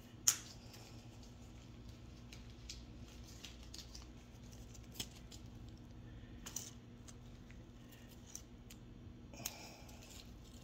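Faint clicks and small handling noises from fingers working small plastic fishing beads and line: one sharp click just after the start and a few lighter ticks spread through, over a low steady hum.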